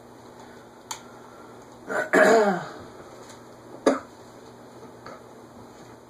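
A man clears his throat once, about two seconds in, over a low steady hum. Sharp clicks come about a second in and again just before four seconds.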